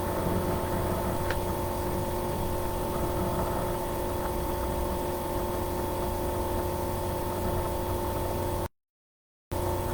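Steady mechanical hum and whir with a few constant tones, cutting out abruptly to silence for under a second near the end.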